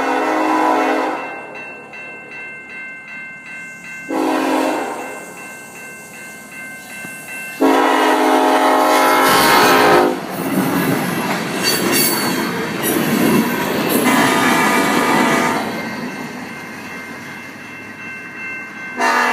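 Norfolk Southern EMD SD70ACE diesel locomotive sounding its horn for a grade crossing: a long blast ending about a second in, a short blast at about four seconds and a long blast from about eight to ten seconds, with a bell ringing about twice a second between them. The locomotive then passes close by, its engine running loudly with wheel noise on the rails, which fades as the few freight cars follow.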